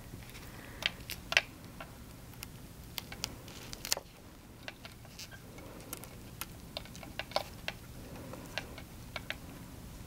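Gloved hands fitting a StatLock catheter securement device onto plastic catheter tubing: scattered small clicks and taps at an irregular pace.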